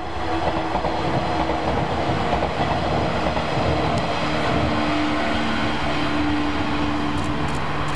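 JR West 115 series DC electric multiple unit running past on the line: a steady rolling rumble of wheels on rail with a hum of several steady tones. A few short clicks come about halfway through and again near the end.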